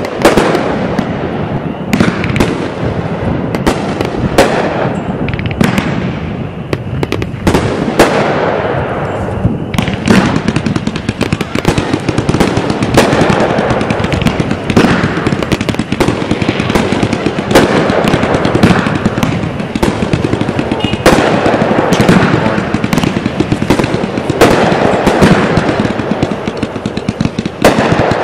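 Consumer fireworks, aerial repeater cakes and ground fountains going off at once in a dense, unbroken barrage: sharp bursting reports several times a second over a continuous rushing noise.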